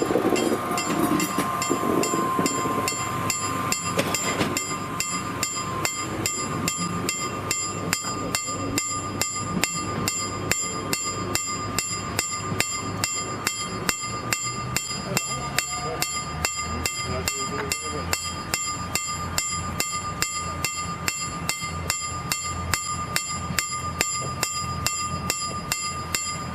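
KLD-40 level-crossing bell ringing in rapid, even strokes at a railway pedestrian crossing, warning that the crossing is closed. For the first few seconds an SA136 diesel railbus runs past with a low rumble.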